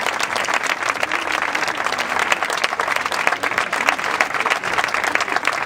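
Audience applauding: dense, steady clapping from a large crowd, with a few voices calling out among it.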